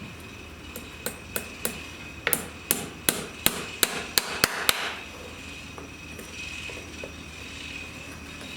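Farrier's hammer striking about a dozen times, the blows coming faster and closer together, then stopping.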